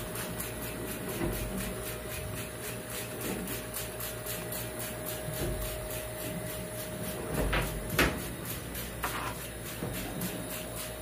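Hand trigger spray bottle squirting cleaner onto plastic seat trim: a few short sprays with the clack of the trigger, the sharpest and loudest about eight seconds in. A steady hum runs underneath.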